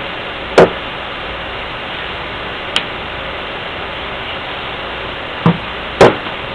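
A few short, sharp knocks and clicks from tools and parts being handled during a CAV diesel injection pump teardown. The loudest come about half a second in and near the end, over a steady background hiss.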